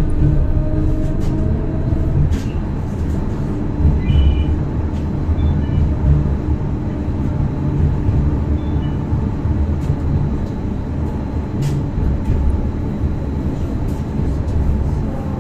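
Stadler B85600M low-floor tram running along the line: a steady low rumble of wheels on rail with a hum from the traction drive and scattered short clicks. Near the end a faint whine rises in pitch.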